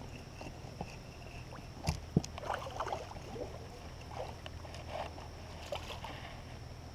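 Small fishing boat sitting on the water: two sharp knocks about two seconds in, then scattered light handling and water sounds over a steady low hum.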